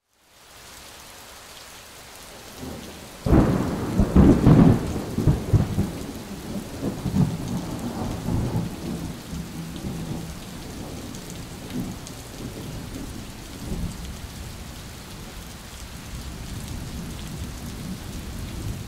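Thunderstorm: steady rain falling, with a sudden loud thunderclap about three seconds in that rolls into a long, deep rumble, then rain with fainter rumbles of thunder.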